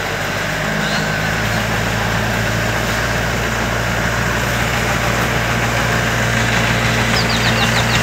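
Yanmar combine harvester's diesel engine running steadily at idle. A high intermittent beeping starts near the end, like a reversing alarm.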